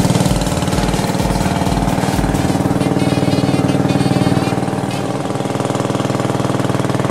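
Boat motor running steadily under way, a fast even chugging; it eases off slightly about five seconds in, then holds.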